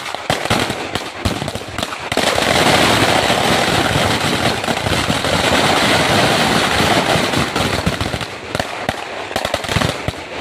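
Firecrackers going off in rapid succession: sharp cracks that run together into a dense, continuous rattle from about two seconds in, then thin into separate bangs near the end.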